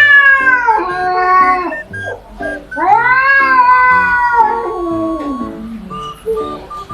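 Cats caterwauling: long drawn-out yowls that bend up and down in pitch, three in a row, the last one sliding down as it fades. This is the territorial yowling of rival cats in a standoff. Light plucked background music plays underneath.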